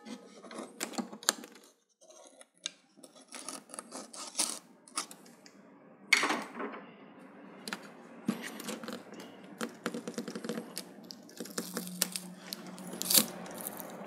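Irregular clicks, taps and scraping of plastic parts being pulled and pried as a television frame held by adhesive is worked loose, with a longer scrape about six seconds in.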